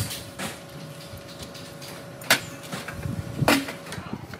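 A few sharp metal clinks and knocks from a ring spanner working bolts on an old engine, the loudest about two seconds in.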